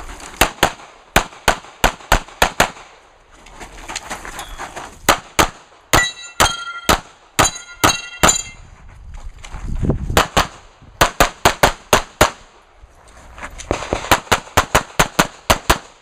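Pistol shots fired in quick strings of several rounds, with short pauses between strings while the shooter moves between positions. In the middle stretch several hits on steel targets ring out with a metallic clang after the shots.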